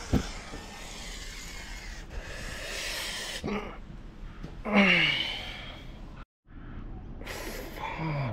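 A man gasping and groaning in pain after hitting his knuckle while undoing a motorcycle's oil drain bolt: a sharp knock right at the start, a long hissing breath, then a falling groan about five seconds in and another near the end.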